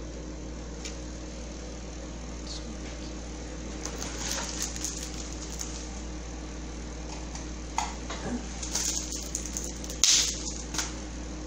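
Small handling noises from craft materials: light rustles and a few clicks, the sharpest about ten seconds in, over a steady low electrical hum.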